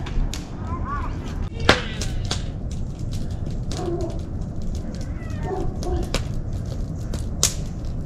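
Wood campfire burning in a metal fire ring, crackling with frequent sharp snaps and pops over a steady low rumble; one loud pop about two seconds in.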